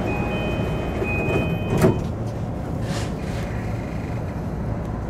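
Electric commuter train running along the line, a steady low rumble heard from the front of the train, with a thin steady tone over it for the first two seconds and one sharp clack a little under two seconds in.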